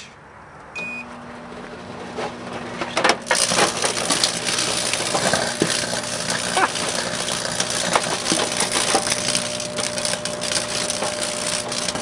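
A microwave oven beeps once as it starts, then runs with a steady hum. About three seconds in, electrical arcing from the empty aluminium drink cans packed inside sets in as a continuous crackle full of sharp snaps.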